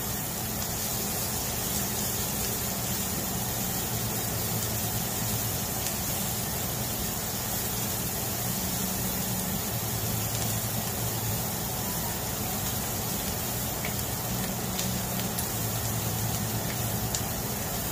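Diced vegetables and onions sizzling steadily in a stainless steel frying pan as they are sautéed and stirred with a silicone spatula, over a steady low fan hum.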